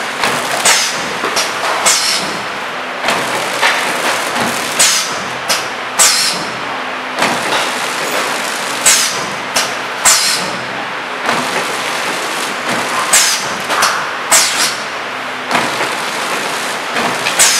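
Automatic flow-wrap packing machine with a pneumatic end sealer running over a steady mechanical hum. Sharp clacks with short hisses of air come irregularly, about once a second, as the end-seal jaws work through the bagged mustard greens.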